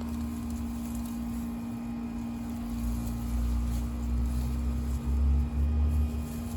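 Steady mechanical hum from a running motor, with an uneven low rumble that grows louder about halfway through.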